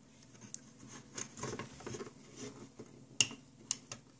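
Small clicks and taps of a hook against the plastic pegs of a Rainbow Loom as rubber loom bands are lifted and pulled off, with a light rustle of the bands. There is one sharper click about three seconds in and a smaller one just after.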